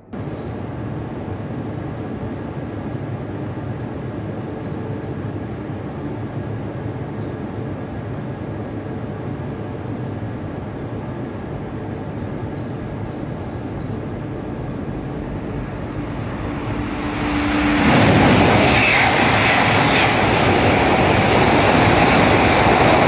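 Tohoku Shinkansen set of an E3-series Tsubasa coupled to an E2-series Yamabiko approaching with a steady rumble, then running through the platform at speed about 18 seconds in. As it passes there is a loud rush of air and wheels, with a whine that drops in pitch.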